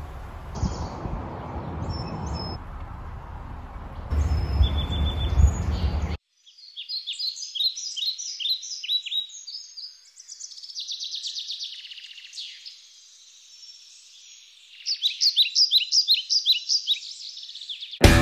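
Wild birds singing: repeated runs of quick, falling chirps. For the first six seconds a low, steady rushing noise lies under them, then stops suddenly, leaving only the birdsong. Music starts right at the end.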